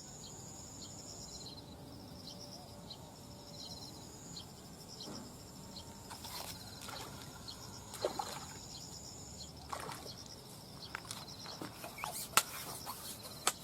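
Insects chirping in a steady high pulsed trill, with scattered light water splashes, trickles and clicks from about halfway through.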